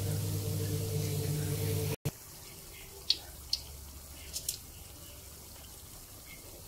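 Sausage-filled lumpia deep-frying in hot vegetable oil in a wok: a steady sizzle with a few sharp pops from the oil. A steady low hum sits under the first two seconds, then the sound drops out for an instant and the sizzle goes on more quietly.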